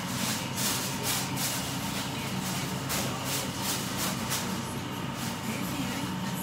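Aluminium foil crinkling and rustling in irregular bursts as it is handled over a steel hotel pan, thinning out about two-thirds of the way through. A steady low hum runs underneath.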